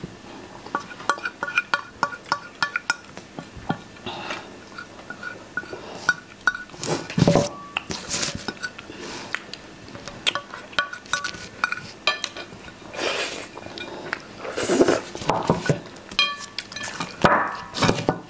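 Wooden forks clinking and scraping on ceramic plates during fast eating, many quick taps with a short ring from the plates, broken by a few louder, longer noises.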